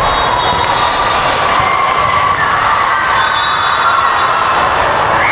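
Steady din of a busy indoor volleyball gym: many voices and the noise of play from the courts, with brief shoe squeaks and a few sharp ball contacts.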